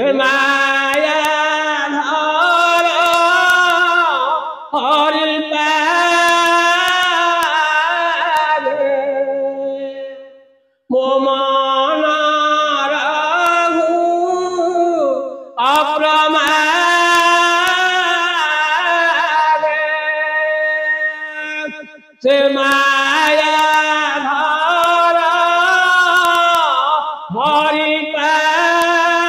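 Unaccompanied man singing Odia Bhagavata verses in a slow, drawn-out devotional chant: long held phrases that bend and ornament in pitch, about five or six of them with short breaths between.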